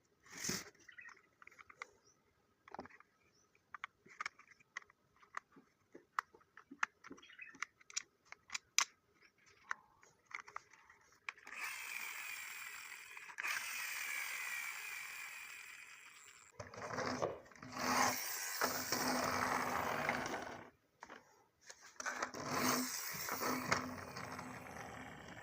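Scattered clicks and taps, then a small geared motor whirring in three spells, each starting and stopping abruptly.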